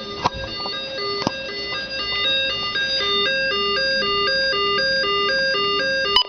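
Electronic two-tone alert melody, alternating between a low and a high note, each about a third of a second long, in a steady see-saw pattern. It cuts out briefly near the end.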